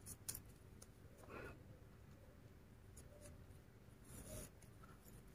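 Near silence with faint handling noise of twisted macramé cord being worked on a crochet hook: two light clicks at the start, then soft rubbing rustles about a second and a half in and again about four seconds in.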